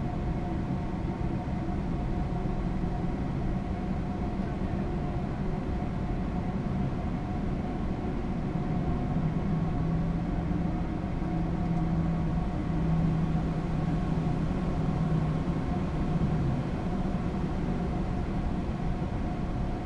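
Steady flight-deck noise of a Boeing 787 taxiing, an even rumble of the idling engines and the air-conditioning, with a low drone that swells a little in the middle.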